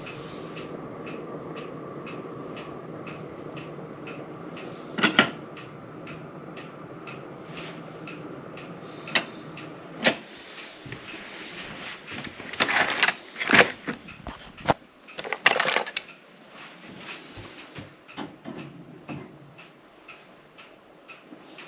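A gas torch runs with a steady rushing hiss while heating a copper-sheet head gasket to anneal it, with faint regular ticking. From about nine seconds in come several sharp metallic knocks and clatters, the loudest sounds, as the metal and tools are handled.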